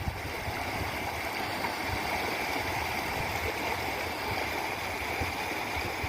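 River in flood rushing steadily.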